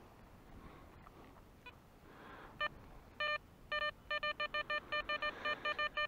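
Metal detector beeping on a buried target, which turns out to be a coin: a few separate beeps of one pitch, then a quick even run of about six beeps a second.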